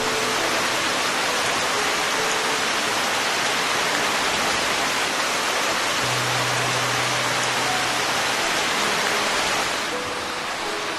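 Steady heavy rain falling on foliage, a dense continuous hiss that softens slightly near the end. Soft background music with a few low held notes underneath.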